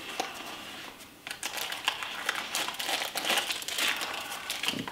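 Cardboard and paper packaging rustling and crinkling as items are pulled out of a small product box, a rapid run of small irregular crackles that starts about a second in.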